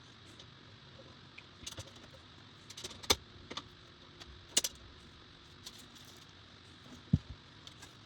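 Scattered light clicks and taps of small hardware parts being handled and fitted in a PC case, with two sharper clicks a few seconds in and a dull knock near the end.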